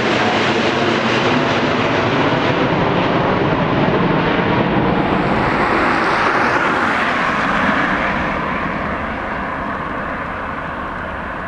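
A Boeing 747-8 Freighter's four GEnx-2B jet engines at climb-out power pass close overhead with loud, steady jet noise. The sound turns to a higher rushing tone and then slowly fades from about eight seconds in as the jet flies away.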